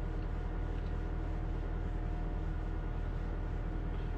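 Steady low hum of a car heard from inside the cabin with the engine running, with a faint steady whine above it.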